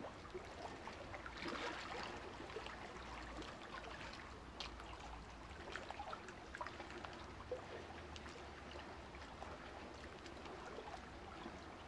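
Faint watery trickling and crackling, many small irregular clicks over a steady low hum.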